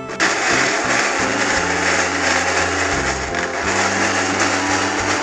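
Small electric chopper whirring steadily as it purees red chilies, garlic and shallots into a wet sambal paste.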